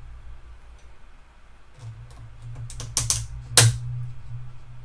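Long metal tweezers clicking and tapping against a small plastic deli cup and its lid: a quiet start, then a handful of sharp clicks in the second half, the loudest about three and a half seconds in. A low hum sits underneath.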